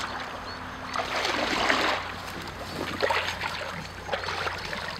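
Shallow water splashing and sloshing, with dry reeds rustling, as a muskrat trap with a catch is pulled up out of the water. The splashing is loudest for a moment between one and two seconds in.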